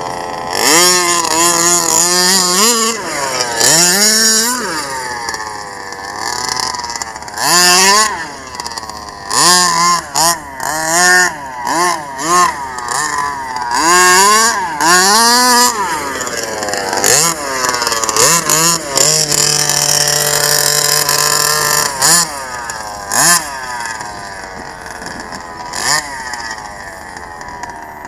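Small two-stroke petrol engine of a 1/5-scale King Motor T1000 RC truck being revved in short throttle blips, each climbing and falling back, one every second or two. It settles into a steady idle for a few seconds past the middle, then runs quieter near the end.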